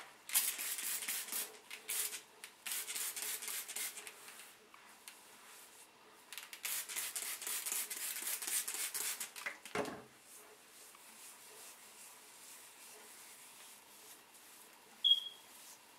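Scratchy rasping and rubbing of a comb and fingers working through hair close to the microphone, in two spells of a few seconds each. A soft bump follows, then a brief high squeak near the end.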